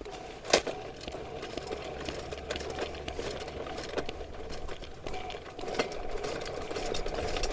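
Motorized drain snake (sewer auger) running in forward, its motor humming steadily as the cable turns and feeds into a main sewer line, with a few sharp clicks.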